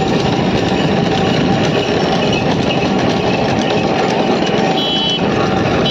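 Bullock cart rolling along a paved road behind two trotting oxen: the spoked wheels and wooden cart rattle and clatter steadily. A brief high tone sounds near the end.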